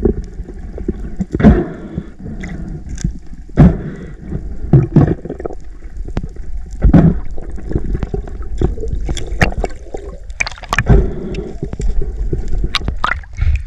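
Underwater audio: a steady low rush of moving water and bubbling, broken by irregular sharp knocks and clicks every second or so as the speared king mackerel and speargun are handled right at the camera.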